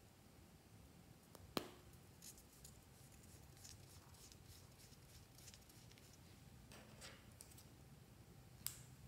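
Small handling sounds of a plastic stick tube: a sharp click as it is uncapped, faint ticks and rustles, then scissors snipping into the stick with a second sharp click near the end.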